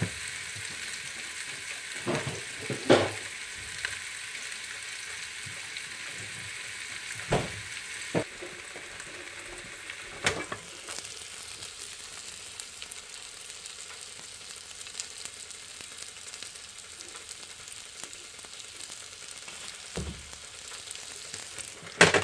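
Seitan sizzling in olive oil on a hot grill, a steady frying hiss. A few short knocks come through it, the loudest about 3 and 10 seconds in.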